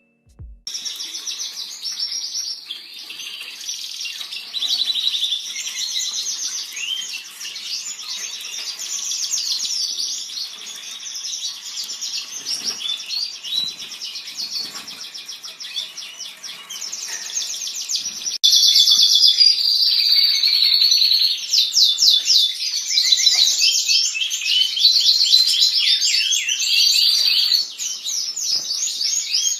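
Many small pet cage birds chirping and chattering together in a dense, continuous chorus; it steps up suddenly in loudness about eighteen seconds in.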